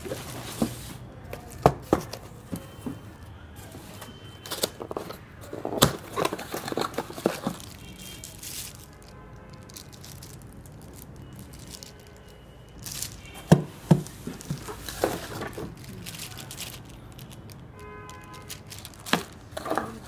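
Cardboard packaging and plastic-wrapped parts being handled: cardboard inserts scraping and knocking, and plastic bags crinkling, in bursts with quieter pauses between.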